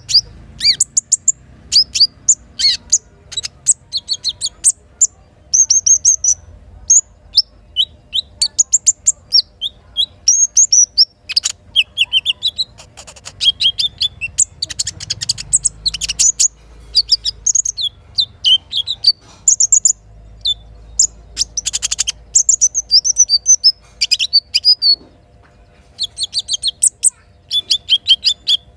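Little spiderhunter (sogok ontong) calling: rapid runs of high, sharp chirps and short trills in quick bursts, separated by brief pauses.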